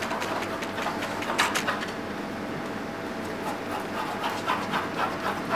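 Repeated scratchy drawing strokes on paper pinned to an easel board, coming in quick runs that grow busier near the end, over a steady room hum.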